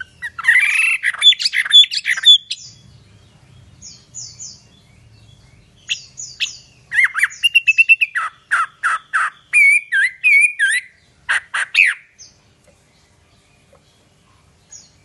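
Chinese hwamei singing loudly: a burst of varied whistled phrases, then a long run of repeated sweeping whistles, about two or three a second, that stops about twelve seconds in.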